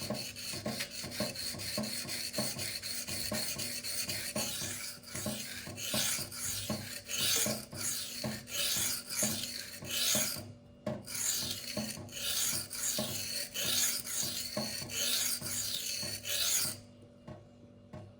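Knife blade of K110 steel stroked freehand back and forth on a coarse 240-grit silicon carbide sharpening stone, raising a burr. A regular run of gritty rasping strokes, roughly two a second, with a brief break near the middle; the strokes stop about a second before the end.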